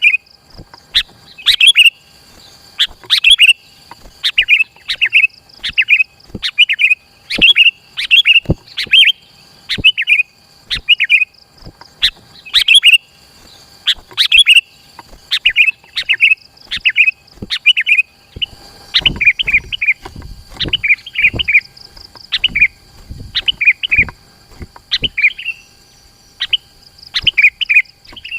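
Sooty-headed bulbul (kutilang) singing in a dense, rapid run of short phrases, about one to two a second. A steady thin high tone runs behind the song, and a low rumble comes in for several seconds past the middle.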